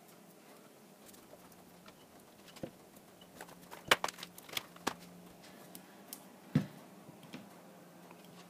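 Sparse light clicks and taps from a clear acrylic stamping block and rubber stamp being handled and set down on a cutting mat. The sharpest knocks come about four seconds in and again about six and a half seconds in.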